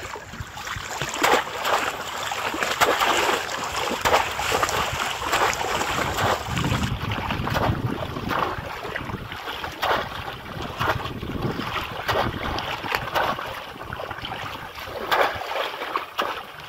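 Water splashing and sloshing again and again as a polo fish trap is worked, with wind noise on the microphone.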